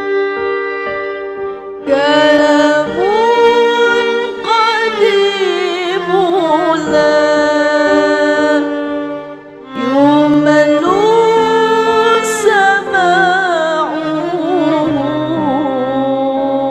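Background music: a slow, ornamented melody line that glides and wavers, over sustained string chords, in two long phrases with a brief drop between them.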